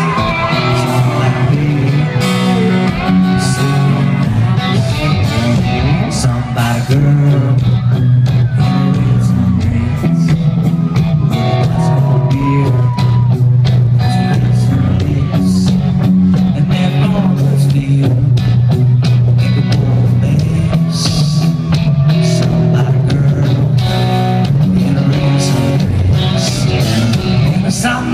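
A country-rock band playing live with a male lead singer. Electric guitars, a heavy bass line and drums play loud and continuous, heard from within the crowd.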